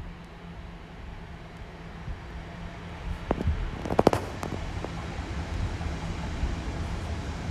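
An electric passenger train running along the overhead-wired main line behind the fence: a steady low rumble and hum that grows gradually louder. A cluster of sharp cracks and clicks comes about four seconds in.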